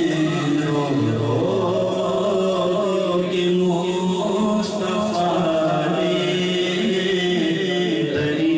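A man's voice singing an Urdu naat into a microphone, drawing out long held notes that bend up and down.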